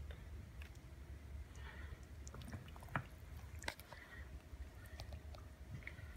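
Saucy pasta being scooped with a serving spoon out of a pressure cooker's inner pot onto a plate: quiet handling sounds with a few sharp clicks of the spoon against the pot, the loudest about three seconds in and again a moment later.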